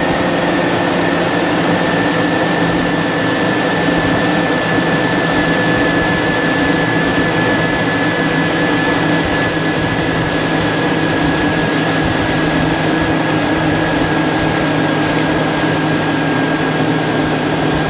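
2001 GMC truck engine idling steadily under the open hood, with a thin high whine above it, while it warms up to push coolant through a freshly flushed heater core and bleed air from the cooling system.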